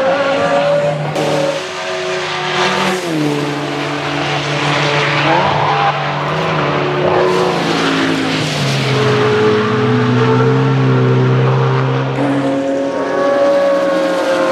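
Racing engines at speed as GT race cars pass one after another, their pitch stepping up and down with gear changes. Near the end a Lexus LFA's V10 climbs in pitch as it comes by.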